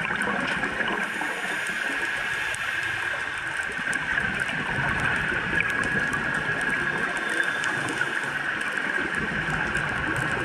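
Underwater ambient noise picked up by a diving camera: a steady, muffled hiss with scattered faint clicks.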